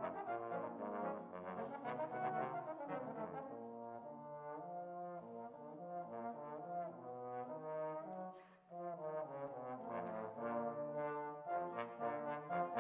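Trombone quartet playing in four-part harmony, with sustained chords moving in steps. About two-thirds of the way through the sound briefly drops away, then the quartet comes back louder with short, crisply tongued notes.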